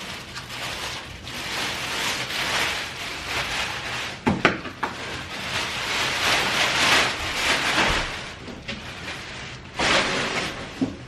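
Rustling and handling of stroller parts during assembly, with a few sharp plastic clicks, two about four seconds in and one near the end.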